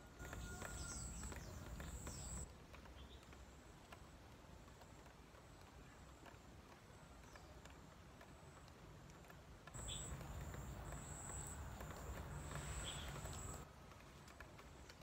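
Faint outdoor ambience with scattered light rustles and clicks from hands pulling at weeds and feet on dry dirt. Twice a low rumble with a thin high tone comes up and stops abruptly: for about two seconds at the start and for about four seconds later on.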